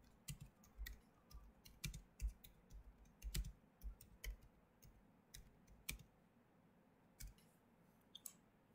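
Faint, irregular keystrokes and clicks on a computer keyboard. They come thick for about six seconds, then a few more near the end.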